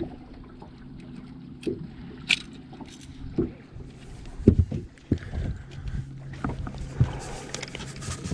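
Knocks and clatter from handling gear and the catch on a bass fishing boat, over a steady low hum.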